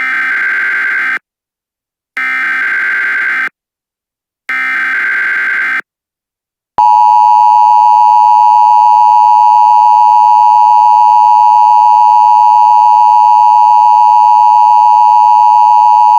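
Emergency Alert System tones for a tornado warning. First come three short bursts of the SAME digital header, each a buzzy data squawk of about a second with a second's gap between them. About a second after the last burst, the loud, steady two-tone attention signal starts.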